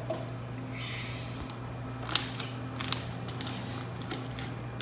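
Freshly made Elmer's glue slime being squeezed and worked by hand, giving a run of sharp clicks and pops from about two seconds in, over a steady low hum.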